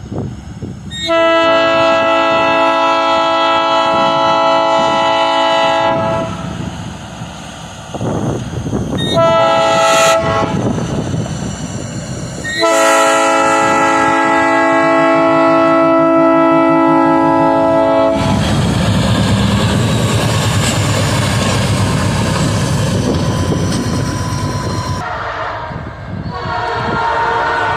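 Locomotive Nathan Airchime P3 air horn sounding a chord: a long blast, a short one, then another long one. After that a train rumbles past with wheels clacking on the rails. Another horn blast comes near the end.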